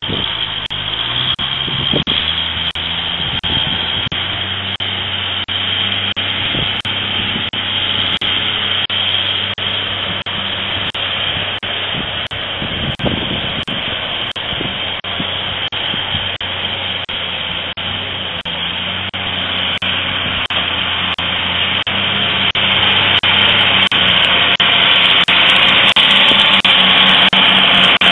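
Heavy truck's engine running steadily as it works up a steep gravel grade, growing louder over the last few seconds as the truck draws near.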